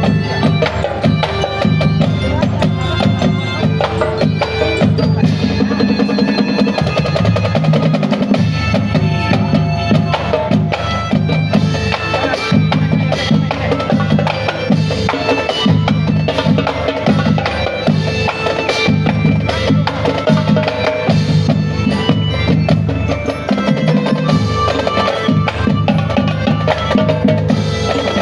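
School marching band playing, with snare and bass drums keeping a driving beat under held melodic notes.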